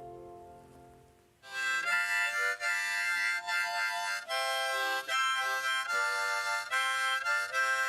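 The last notes of a song fade out. About a second and a half in, a wind instrument begins playing a melody of held notes with short breaks between them.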